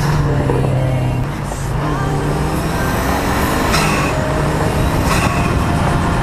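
Car engine running steadily with road noise as the car drives along, picked up by a camera mounted low on the outside of the car.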